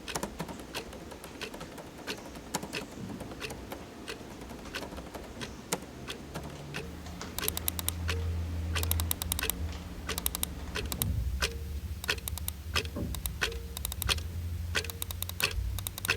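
Keys clicking rapidly and irregularly, as in typing on a keyboard. A low steady hum comes in about six or seven seconds in.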